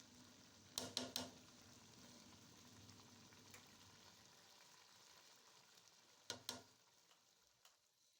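Faint sizzling of chicken biryani frying in a pot, with sharp clinks of a utensil against the pot, three about a second in, one in the middle and two more near the end. The sizzle dies down shortly before the end.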